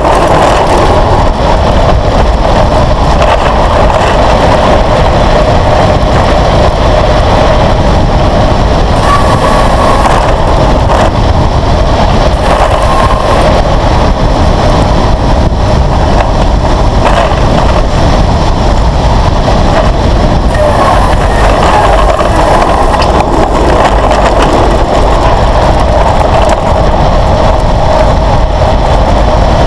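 A road vehicle's engine running while under way, with heavy wind rushing over a camera mounted on the bodywork; the engine note rises and falls with the revs.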